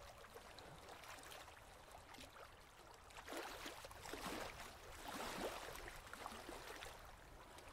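Faint water lapping and splashing, as at the side of a boat, swelling a few times about three to six seconds in.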